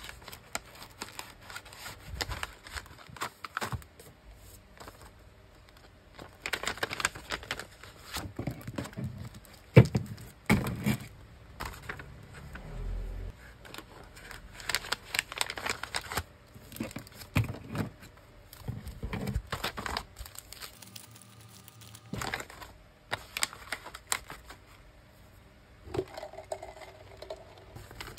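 Clear plastic sleeves holding sticker sheets and a printed gift bag being handled and packed: irregular crinkling and rustling in uneven bursts, with one sharp snap about a third of the way in.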